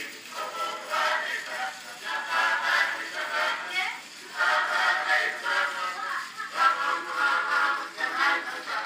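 An Edison Standard Phonograph playing a cylinder record of a singer with accompaniment through its horn. The sound is thin and tinny, with almost no bass.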